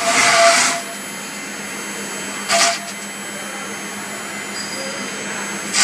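CNC router's 13.5 kW air-cooled spindle running steadily with a hum and a thin high whine while its bit carves a foam block. Three short, loud hissing bursts come as the cutter works the foam: at the start, about two and a half seconds in, and at the end.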